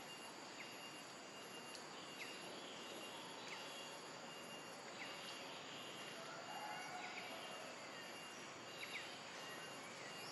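Faint outdoor background with a steady high insect drone, broken by a short falling chirp that repeats about every second or so.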